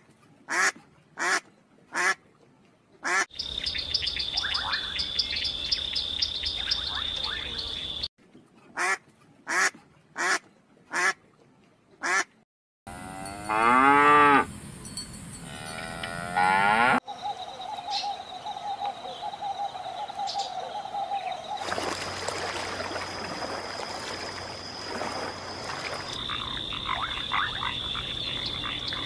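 Mallard ducks quacking in two runs of short, evenly spaced quacks, then a loud, drawn-out lowing call from an African buffalo that bends in pitch, with a steady high-pitched buzz between and after the calls.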